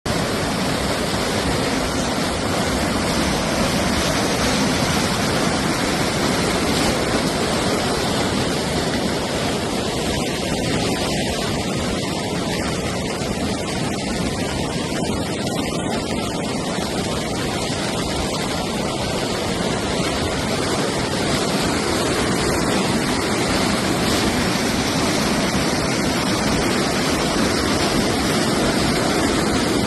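Heavy rain falling, a steady, even rush of noise that does not let up.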